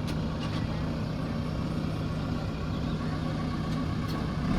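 Diesel engine of a JCB backhoe loader running at a steady pace.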